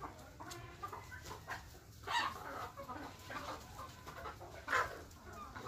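A flock of local desi chickens calling in their shed: scattered short calls, with louder ones about two seconds in and again near the end.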